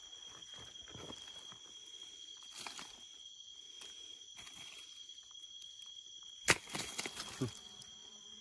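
Night insects, crickets or similar, trilling steadily at two high pitches. A single sharp click about six and a half seconds in, followed by a few soft knocks and rustles.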